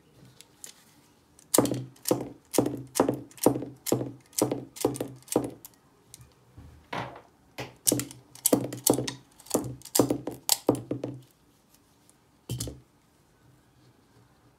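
.380 ACP cartridges being pushed one by one out of a pistol magazine and dropping onto the table. There are about twenty sharp clicks in quick succession, roughly two a second, then one more near the end.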